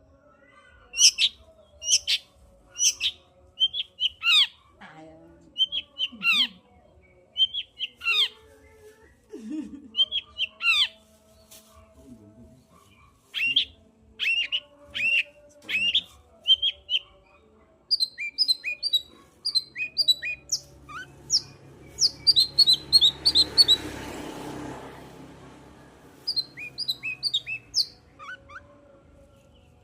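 Long-tailed shrike (cendet) singing a varied, chattering song of sharp high chirps and squawks, with a quicker run of high notes about two-thirds of the way through. A rushing hiss rises under the song for a few seconds past the middle.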